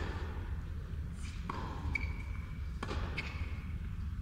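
Tennis rally: racquets striking the ball and the ball bouncing on the hard court, three sharp pops that ring briefly in the arena.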